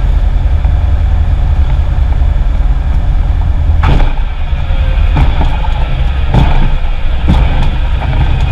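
Loud steady rumble of a light single-engine plane's engine and airflow heard inside the cockpit during a landing. In the second half come four sharp thumps about a second apart, as the plane bounces on the runway in a pilot-induced oscillation.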